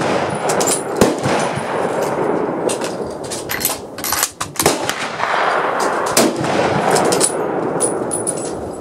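Gunfire from a busy outdoor firing line: sharp rifle shots coming irregularly, sometimes several a second, over a continuous wash of echoing report.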